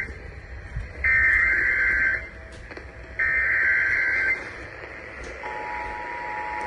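Emergency Alert System header tones: the tail of one harsh digital data burst, then two more, each about a second long and a second apart. About five seconds in the steady two-tone EAS attention signal begins, announcing a National Weather Service severe thunderstorm warning.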